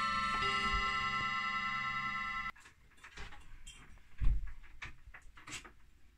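Mantle clock's rod gongs ringing as the clock chimes, with a few fresh strikes over the ringing notes; the sound cuts off abruptly about two and a half seconds in. Then come light clicks and one sharp knock from the wooden case being handled.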